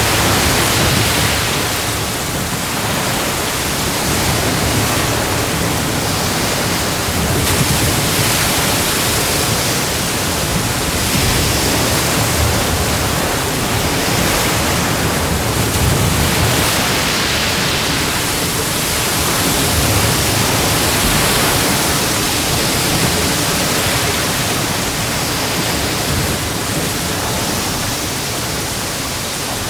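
Ocean surf breaking on a beach: a continuous wash of waves, swelling and easing every few seconds.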